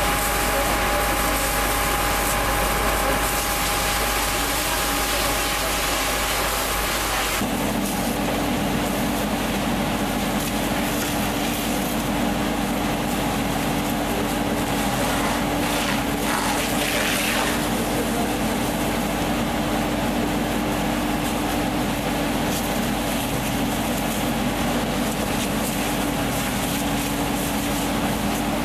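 An engine running steadily under a constant hiss of spray, with an abrupt change about seven seconds in, after which a steady low hum dominates.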